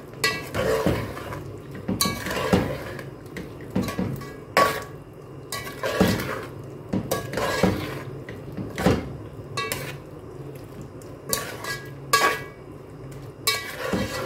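Metal spoon scraping and clinking against the side and bottom of a metal cooking pot while stirring a thick mixture of chicken, potatoes and spices, in irregular strokes roughly once a second.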